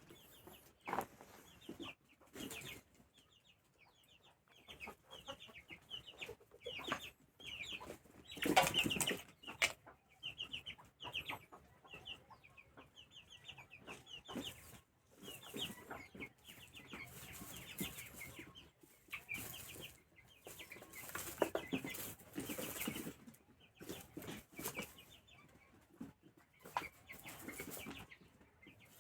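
Chickens clucking in many short, quick calls, with irregular rustling and flapping bursts; the loudest burst comes about nine seconds in.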